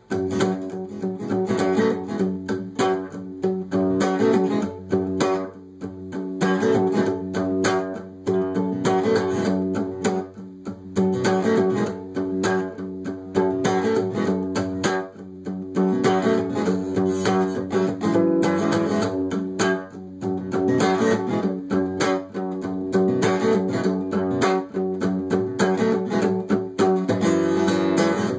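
Acoustic guitar played solo, with chords strummed throughout.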